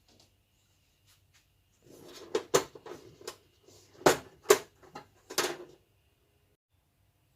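Sharp clicks and knocks of the TV's LCD panel frame being unclipped and handled, a cluster of them between about two and six seconds in.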